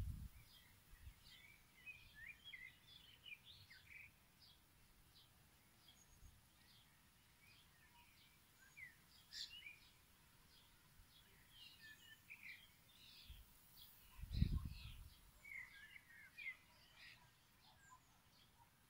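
Faint birdsong outdoors: many short chirps and twittering calls from small birds, scattered all through, with a brief low thump about fourteen seconds in.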